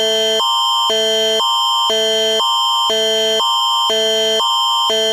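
Canadian Alerting Attention Signal, the Alert Ready emergency-alert tone: a steady high tone held throughout while two pairs of tones, a higher and a lower, alternate about twice a second. It marks an emergency alert, here a severe thunderstorm warning, about to be broadcast.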